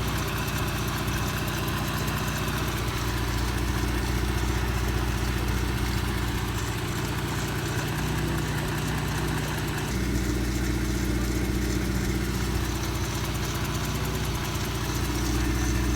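2019 Dodge Durango engine idling steadily at operating temperature, warming up after a thermostat replacement so that air bleeds from the cooling system. The tone shifts slightly about ten seconds in.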